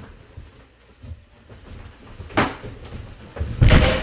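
A large cardboard shipping box being upended and lifted off an upholstered glider: a low shuffle of handling, a sharp knock a little past halfway, and a heavier, louder thud near the end as the glider comes out of the box.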